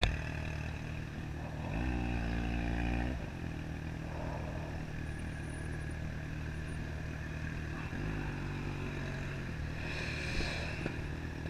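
Motorcycle engine running at a steady pitch, swelling louder twice, about two seconds in and again about eight seconds in.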